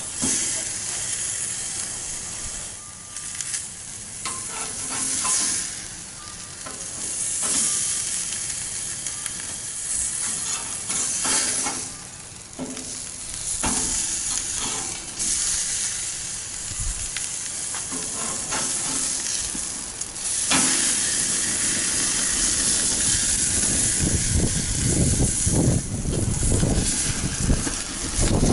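T-bone steak sizzling on the hot grates of a propane sear box, with occasional clicks and scrapes of a metal spatula and tongs. About twenty seconds in the sizzle grows louder and rougher as flames flare up around the meat.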